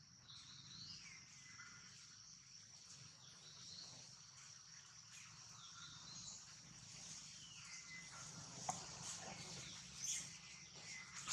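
Faint outdoor ambience: a steady high-pitched whine with a few faint falling whistled calls, about a second in and again around seven seconds, and a couple of soft clicks near the end.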